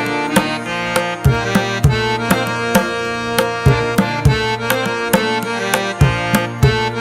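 Instrumental background music: a held melody over a steady beat of hand-drum strokes.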